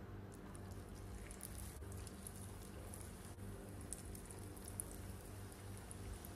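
Batter-coated ripe banana slices frying in hot oil in a small pan, a faint sizzle with fine crackling over a low steady hum.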